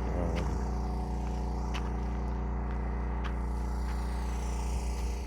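Portable generator engine running steadily at constant speed, a low even hum with a few faint clicks, dropping away suddenly at the end.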